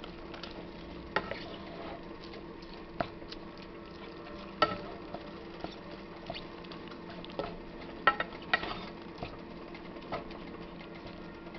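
A wooden spoon stirring ground chicken in a frying pan, with irregular knocks and scrapes against the pan over the faint steady sound of the meat cooking.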